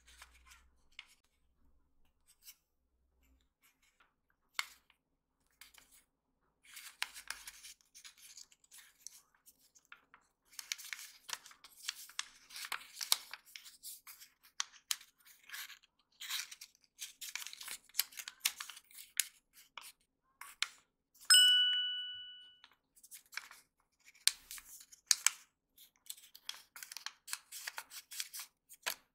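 Origami paper being creased and folded by hand: crackling rustles and sharp crease snaps, sparse at first and busy from about seven seconds in. About two-thirds of the way through, a single clear ding rings out and fades over about a second.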